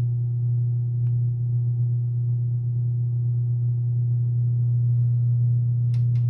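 Bally Xenon pinball machine giving off a steady low electrical hum from its sound system, one unchanging tone with fainter overtones. A couple of faint clicks come near the end.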